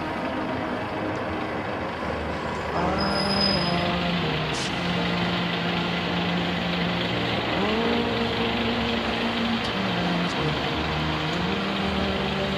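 Heavy vehicle engine, such as a fire engine's diesel, running with a low steady note that rises twice and dips once as it is revved. A short hiss partway through.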